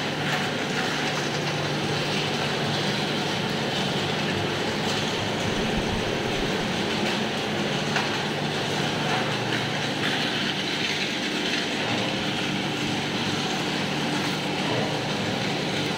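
Stand-mounted axial hot-air fan running steadily: an even rush of blown air over a low, constant motor hum.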